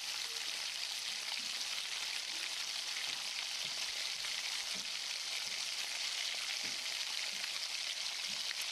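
Chopped onions, with garlic and green chillies, frying in hot oil in a kadai: a steady sizzle with faint crackles.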